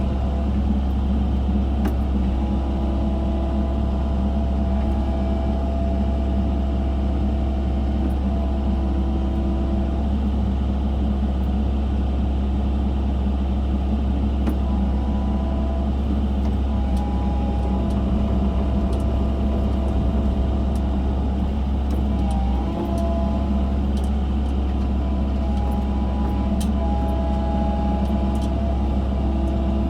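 Excavator's diesel engine running steadily under load while digging, a deep even drone with fainter higher tones coming and going over it.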